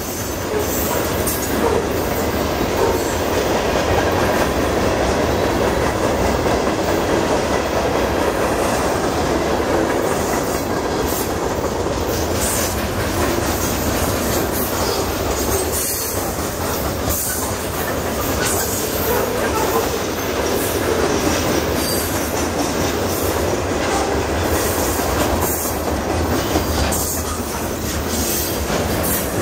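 Freight train cars, boxcars and pole-loaded flatcars, rolling past close by: a steady, unbroken rumble and rattle of steel wheels on rail.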